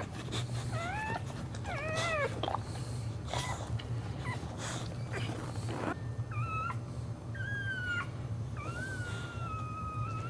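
Dog in labour whining: a series of high, pitch-sliding cries, short at first and a longer, slowly falling whine near the end. A steady low hum and faint rustling lie underneath.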